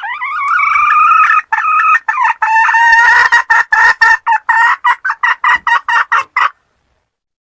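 Wild junglefowl hen calling: one long drawn-out note, then a fast run of short, clipped clucking notes that stops abruptly.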